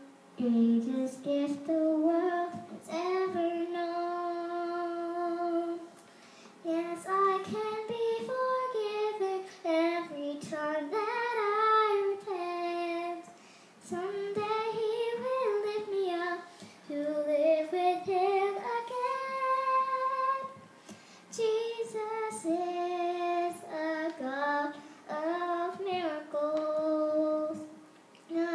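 A young girl singing solo in long held, sustained phrases with short breaths between, several gliding up and down in pitch.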